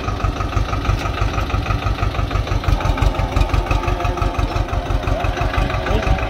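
Swaraj 724 XM Orchard tractor's two-cylinder diesel engine running at a steady speed with an even, low beat while the tractor pulls a single-bottom plough through the soil.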